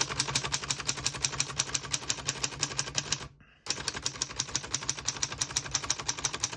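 1927 Underwood four-bank portable typewriter being typed on: a rapid, even run of keystrokes, type bars striking the platen, with one brief pause about halfway through.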